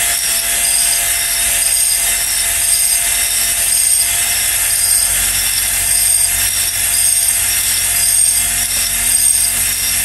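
Cordless drill running steadily while it spins a spring-loaded stone cylinder hone inside an oiled 250cc ATV cylinder bore. The stones scrape the bore wall with a scraping that pulses in a steady rhythm, breaking up the glazed bore and laying a cross-hatch.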